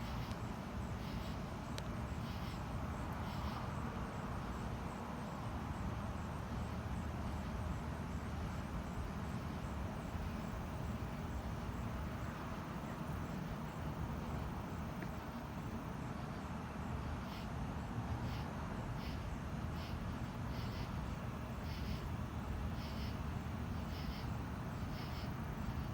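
Outdoor night ambience: a steady low rumble with a faint high chirp that repeats a little faster than once a second, most regular in the last third.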